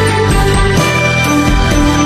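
Background music with a steady beat, played loud over the scene.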